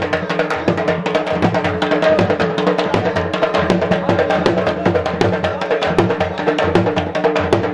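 Dhol drum beaten in a fast, dense jhumar dance rhythm, with a held melody line sounding above the drumming.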